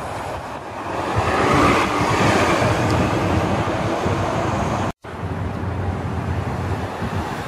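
Nova LFS Artic hybrid articulated bus, with a Cummins ISL9 diesel and Allison hybrid drive, pulling past close by. Its engine and tyres are loudest about two seconds in and fade as it drives away. After a sudden cut, steady city street traffic noise.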